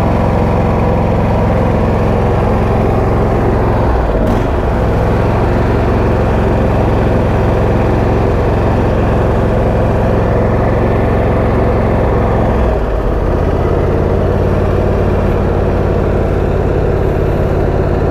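Husqvarna YTA22V46 lawn tractor's 22-horsepower V-twin engine running steadily at idle, its note dipping briefly about four seconds in and again near thirteen seconds.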